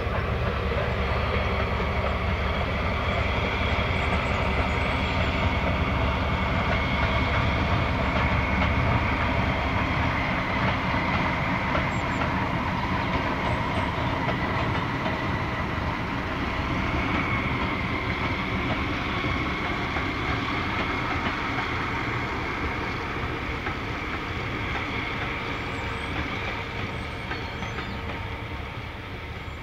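Small green BR diesel shunter hauling passenger coaches past, its engine running steadily as the coaches roll by on the rails. The sound fades near the end as the train draws away.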